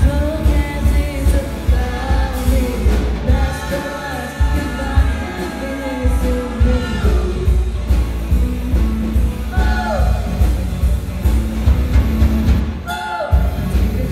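Live rock band playing with a woman singing lead over a heavy, pulsing bass and drum backing. The band drops out for a moment near the end, then comes back in.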